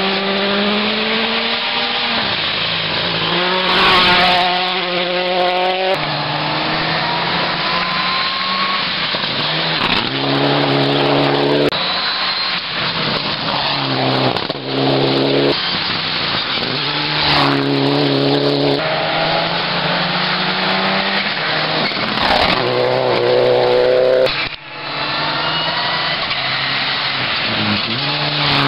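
Rally car engines at full throttle, revving up and shifting through the gears over and over, with short lifts off the throttle between runs.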